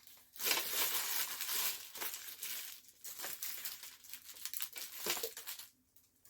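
Packaging being handled and crinkled, a dense rustle over the first few seconds that thins to scattered rustles and stops about half a second before the end.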